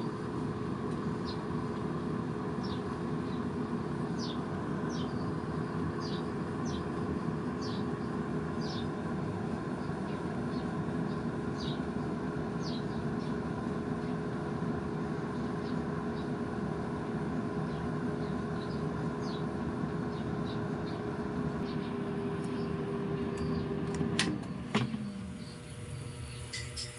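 An air fryer's fan running with a steady hum. About 24 seconds in there is a click, and the fan winds down with a falling tone as the fryer is switched off or opened.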